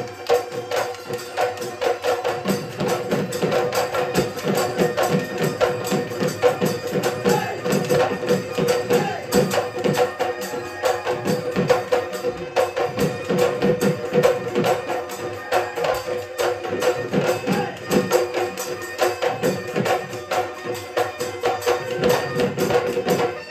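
Instrumental Assamese Bihu folk music: fast, driving dhol drumming with jingling cymbal and percussion strokes over a steady held note.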